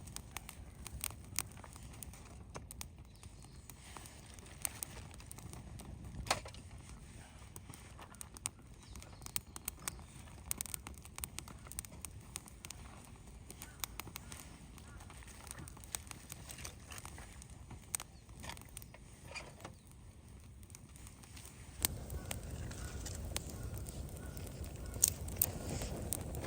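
Small campfire of pine cones and twigs crackling with many sharp, irregular pops. About 22 seconds in it turns louder and fuller.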